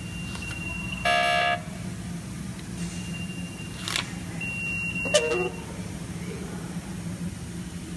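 New York City subway turnstile giving one loud buzzy beep lasting about half a second, about a second in, over a steady low hum. A sharp click follows a few seconds later, then a second click with a short falling tone.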